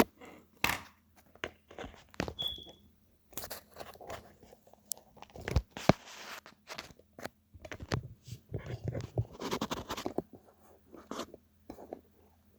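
Irregular clicks, knocks and scraping from hands and tools working on a plastic radiator tank, with a short high squeak about two seconds in.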